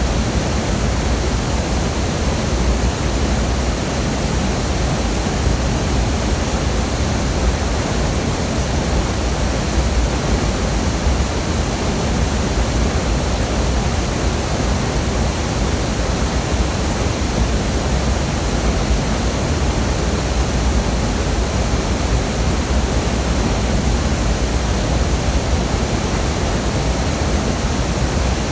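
Longdang Waterfall's water falling and splashing: a loud, steady rush of noise, heaviest in the low end.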